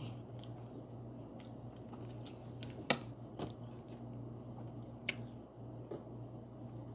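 Close-up mouth sounds of a person chewing food: soft wet squishing with small scattered clicks, and one sharp click about three seconds in. A steady low hum sits under it.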